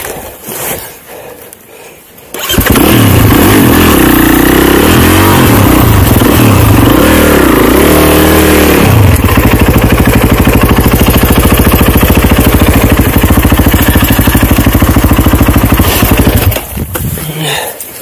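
Snowbike engine (dirt bike on a track kit) revving hard, rising and falling, then held at high revs for about seven seconds before dropping off suddenly near the end, with the bike stuck in deep snow.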